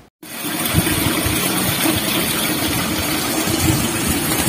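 An engine idling steadily, starting abruptly just after the start with a low rumble and a hiss.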